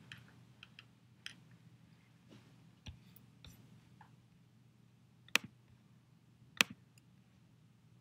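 Computer clicks: two sharp clicks a little over a second apart past the middle, with scattered fainter clicks and ticks before them, over a faint low hum.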